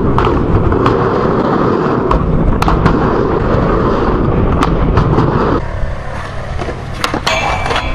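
Skateboard wheels rolling loudly over ramp and concrete surfaces, broken by sharp clacks of the board striking. The rumble drops quieter about two-thirds of the way through, and a quick run of loud clattering impacts comes near the end.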